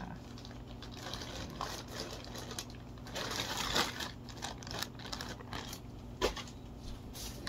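Clear plastic zip-top bag crinkling and rustling as it is handled and rummaged through, with scattered light clicks and taps; busiest about three seconds in.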